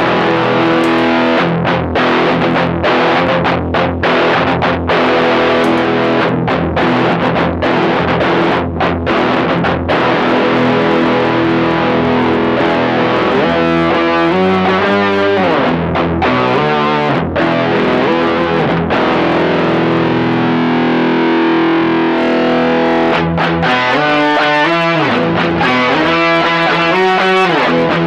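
Distorted electric guitar played through an Electro-Harmonix Micro POG polyphonic octave generator, which adds octave voices to the notes. It plays sustained chords and then quicker single-note runs, twice over.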